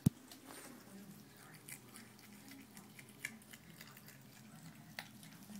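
Faint scattered ticks and taps of a baby opossum's claws scrabbling on a smooth tub surface. One sharp knock comes right at the start, and two clearer clicks come about three and five seconds in.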